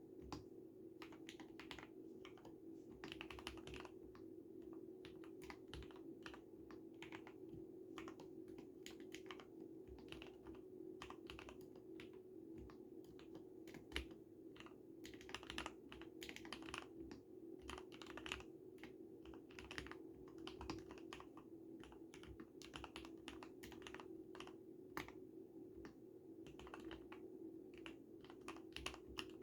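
Typing on an Akko x Ducky Zero 3087 mechanical keyboard fitted with lubed 45 g Cherry MX Red linear switches, with a type mod and two layers of sound-dampening foam: a continuous run of keystrokes in quick, irregular succession. A steady low hum sits underneath.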